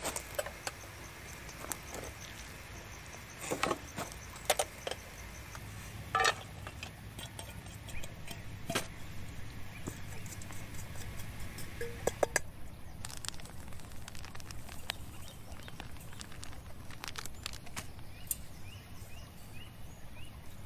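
Metal kebab skewers and steel cookware being handled, with scattered sharp clicks and knocks, the loudest a few seconds in and again about twelve seconds in, over a steady low outdoor background.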